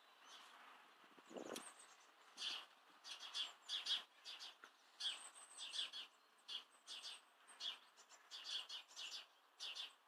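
Small birds chirping: a string of short, high chirps, several a second, starting about two and a half seconds in.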